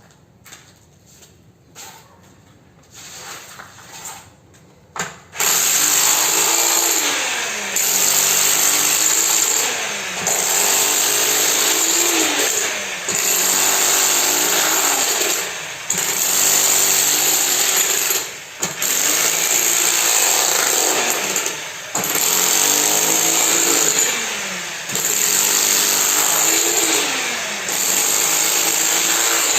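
A power tool's motor running loudly in repeated spells of two to three seconds, its pitch sagging and recovering in each, after a few seconds of quieter knocking.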